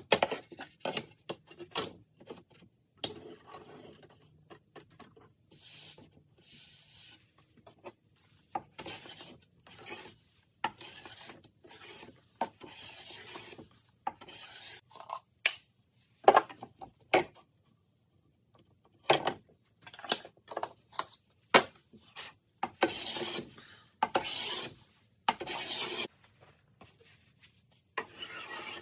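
Small hand plane cutting along the edge of a sapele board in repeated short strokes, each a brief dry hiss of wood being shaved off, with a few sharp clicks between strokes; the board is being shaped into a rudder's foil.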